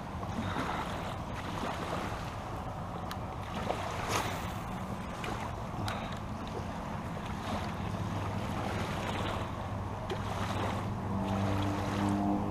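Wind on the microphone over a steady outdoor noise bed, with an engine's low hum coming in about two-thirds of the way through and growing louder near the end.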